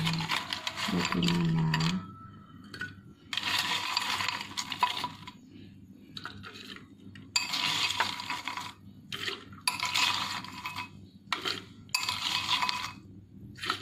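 Ice cubes clinking and rattling against a metal spoon and glass as they are scooped from a glass bowl and dropped into a glass mug, in about five bursts of a second or so each.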